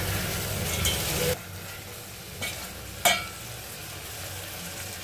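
A metal spoon stirring and scraping fried sardines in onion and tomato paste in an aluminium pot, over a sizzle from the pan. The stirring stops abruptly about a second in, leaving a quieter steady sizzle with two light taps near the middle.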